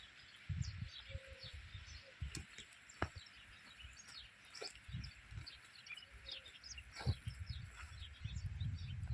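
Many small birds chirping in quick, scattered calls over a steady background hiss, with a few low thuds in between.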